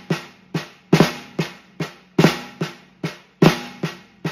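Snare drum played as the Swiss Army triplet rudiment at a slow, steady tempo: repeating groups of three strokes, each an accented flam followed by two lighter single strokes, about every 1.2 seconds, with the drum ringing after each hit.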